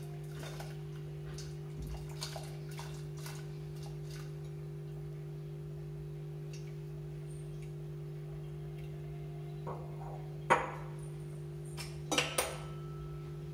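Rinsed, soaked toor dal being scraped by hand from a glass bowl into a pressure cooker, with soft wet clicks of lentils and fingers against the glass. Near the end come a few sharp knocks as the glass bowl is set down. A steady low hum runs underneath throughout.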